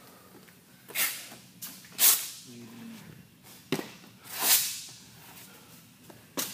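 A person's heavy, forceful breaths close to the microphone: two sharp blows about a second apart, then a longer one a couple of seconds later. A short knock falls between them, and another comes near the end.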